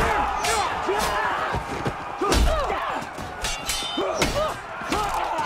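Melee battle of swords and wooden shields: men shouting and yelling over repeated clashes and blows, some with a ringing metal clang, and a heavy thud about two and a half seconds in.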